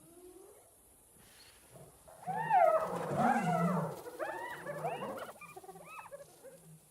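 Several spotted hyenas calling together: overlapping yelps and whoops that rise and fall in pitch, starting about two seconds in and thinning out near the end.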